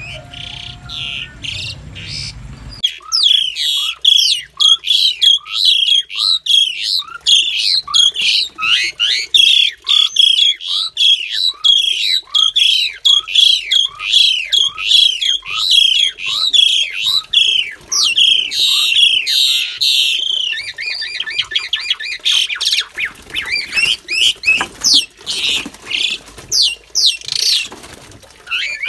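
Asian pied starlings calling loudly, a regular series of harsh, falling squawks about two a second, changing after about twenty seconds to a faster rattling series with a few sharp knocks. This is a newly paired male and female fighting.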